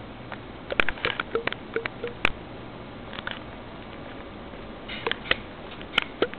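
Angora rabbit moving about on a hard floor: irregular light clicks and taps of its claws and feet, in short clusters.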